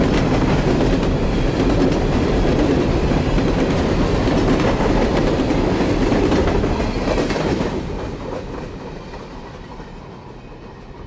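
Norfolk Southern mixed freight train's cars rolling past, wheels clicking over the rail joints. About three-quarters of the way through the noise drops suddenly and then fades away, as the end of the train goes by.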